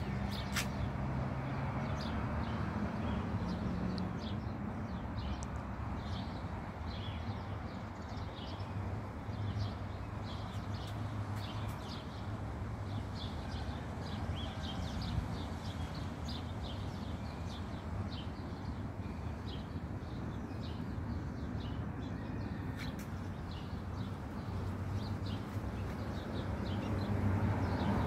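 Small birds chirping, a steady run of short high chirps, over a low background rumble that grows louder near the end.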